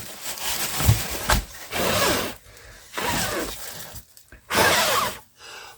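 Styrofoam packing being handled and pulled apart, crunching and crackling in four or five short bursts.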